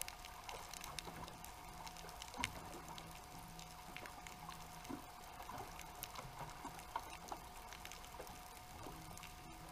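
Faint underwater ambience picked up through a GoPro's waterproof housing: scattered small clicks and crackles over a steady faint hum, with a low tone that comes and goes.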